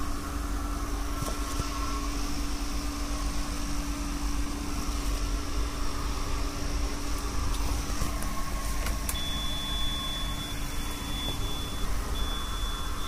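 Ashok Leyland Dost CNG engine idling steadily, freshly serviced, with an even low rumble. A faint high-pitched whine joins about two-thirds of the way through.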